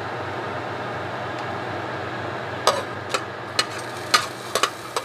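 A steady low hum, then from a little past halfway about six sharp clicks as a metal spoon taps and scoops chopped onion off a plastic plate.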